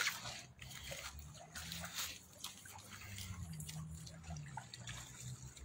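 Faint drips and trickles of water as a nylon cast net is drawn back through shallow lake water.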